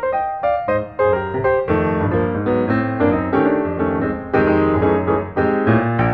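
Lively piano music at a steady march-like beat, chords over a bass line: the piano accompaniment for a set of calisthenics exercises.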